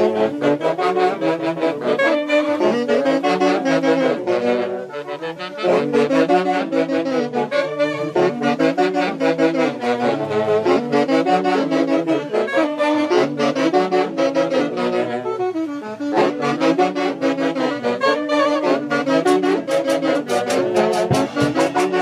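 Band music led by saxophones and brass, playing a melody over a steady dance beat, with two brief breaks in the phrasing.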